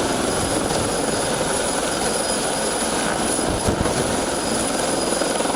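Helicopter hovering close by, its engine and rotor running steadily.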